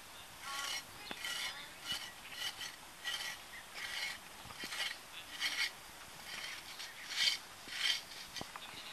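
Small hand excavation tool scraping away midden soil in about a dozen short, irregular strokes.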